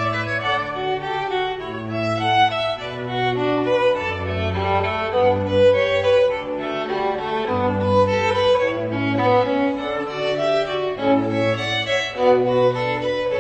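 Background instrumental music: a slow violin melody over held low string notes that change every second or two.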